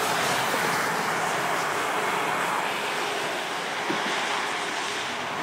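Steady rushing outdoor noise of wind and road traffic, slowly fading, with a faint knock about four seconds in.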